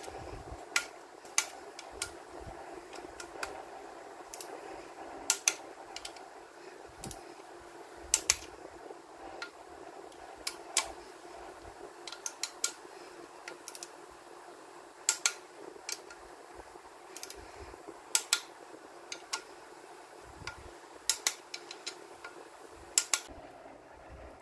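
Sharp metallic clicks and clinks, singly and in close pairs at irregular intervals, from a ratchet and hex-bit socket working the camshaft holder bolts on a Hyosung GD250's single-cylinder head. A steady low hum runs beneath.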